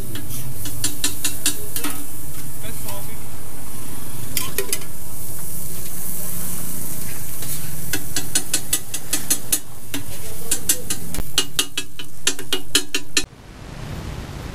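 Flat metal spatula chopping and scraping tikki mixture on a hot iron tawa griddle, in several rapid runs of sharp clacks over the sizzle of frying. Near the end the clatter stops suddenly and only a quieter steady hiss remains.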